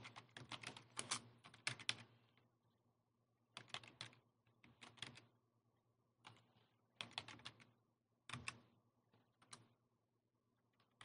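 Faint clicking of a computer keyboard as a command is typed, in short bursts of keystrokes separated by pauses.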